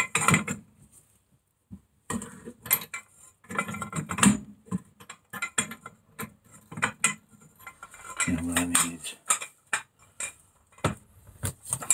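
Scattered metal clinks and knocks of a socket on a long breaker bar, a 4.5-foot jack handle, working loose a nut on a rusty wheel hub.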